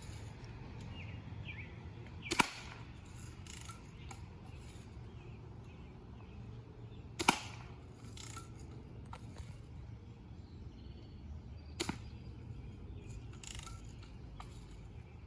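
BB gun firing three sharp shots, about four and a half seconds apart, with fainter clicks in between.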